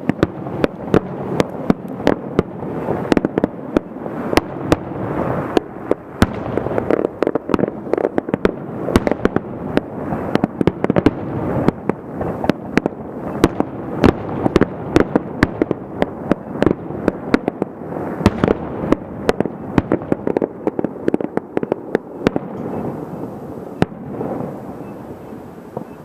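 Fireworks display: shells bursting in a dense run of sharp bangs, several a second, over a continuous din. The bangs stop a few seconds before the end and the din fades.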